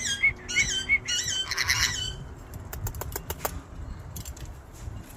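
Aviary parrots calling: a quick series of short, repeated looping whistled squawks, then a run of sharp clicks about three seconds in.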